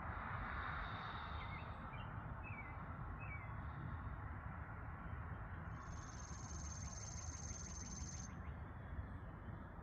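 Morning birdsong: a few short chirps in the first few seconds, then a high, buzzy trill lasting about two and a half seconds, over a steady low background rumble.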